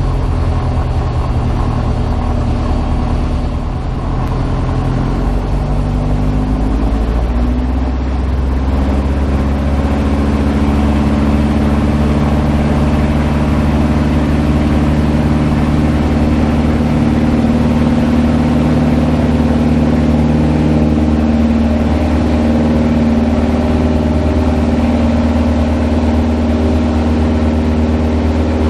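A Van's RV-7A's piston engine and propeller heard from inside the cockpit, rising in pitch over a few seconds as the throttle is opened, then running steadily at high power.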